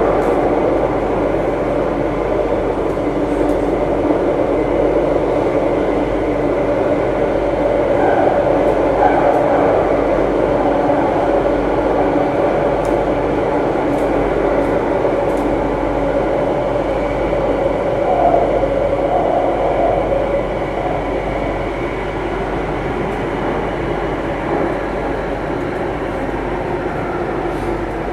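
Singapore MRT Circle Line train heard from inside the carriage while running: a steady rumble of wheels and running gear with a continuous hum. It gets slightly quieter over the last few seconds.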